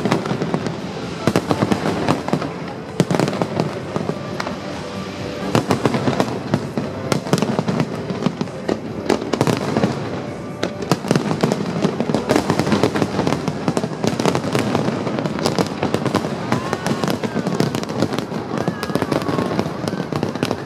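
Fireworks display going off in a dense, continuous barrage of bangs and crackling, with no break.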